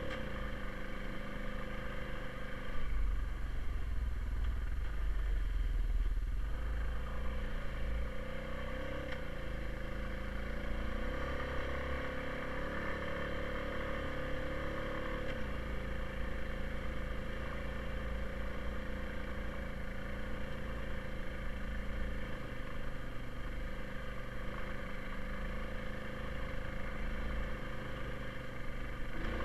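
2020 Honda Rubicon ATV's single-cylinder engine running while it is ridden, its pitch rising and falling a few times midway as the throttle changes. A heavier low rumble comes in about three seconds in and lasts a few seconds.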